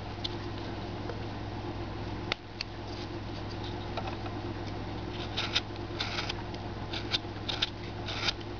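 Carving knife cutting wood by hand: a run of short, dry slicing and scraping strokes, sparse at first and coming thick and fast in the second half, over a steady low hum.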